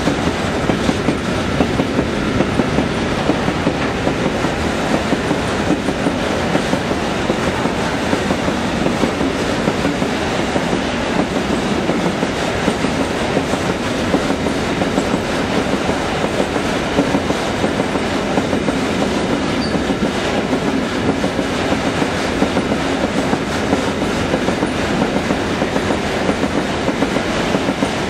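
Empty ore hopper wagons of a long freight train rolling past at speed: a loud, steady run of wheels on the track with dense, continuous clicking that does not let up.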